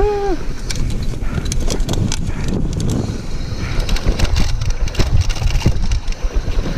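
Mountain bike descending a dirt downhill trail at speed: tyres rumbling over the dry, rutted dirt while the bike rattles and clatters with constant small knocks.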